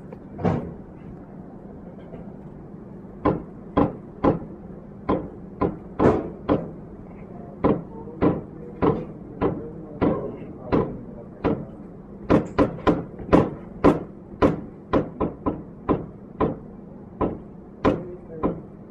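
A series of sharp knocks or taps, irregular, one or two a second and quicker for a few seconds in the latter half, over a steady low hum.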